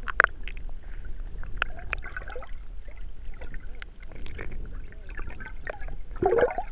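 Water sloshing and splashing close to the microphone, with many small scattered clicks and knocks over a low steady rumble.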